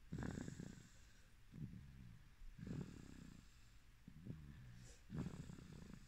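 A sleeping baby's soft snoring: about five quiet, low breaths, a little over a second apart.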